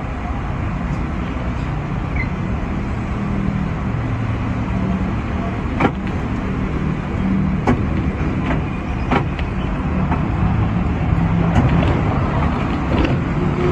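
Interior running noise of a sixth-generation teak-bodied Hong Kong electric double-decker tram: a steady low hum and rumble with drifting tones, broken by a few sharp clicks.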